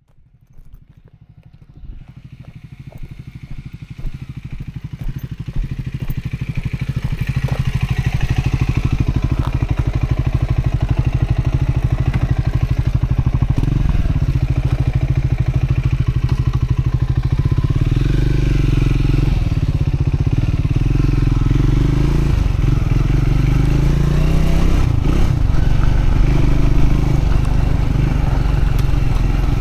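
Triumph Scrambler 400X's single-cylinder engine running as the motorcycle is ridden, a new bike in its break-in period. The sound builds up over the first several seconds, and from about halfway through the revs rise and fall repeatedly as it pulls through the gears.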